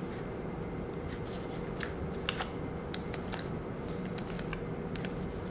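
Faint, scattered crinkles and light clicks of a painter's tape stencil being handled and pressed onto the skin, a couple of them a little sharper about two seconds in, over a steady low room hum.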